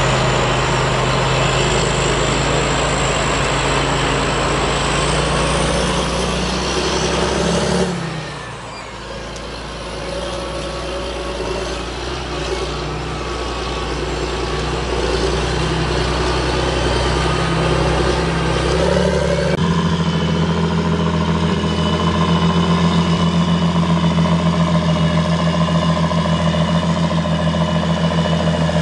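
A John Deere 8430 tractor's six-cylinder diesel working under load, pulling a silage transport trailer through deep mud. The engine drone drops off abruptly about eight seconds in and builds again. From about twenty seconds in it runs louder, with a steady pulsing throb.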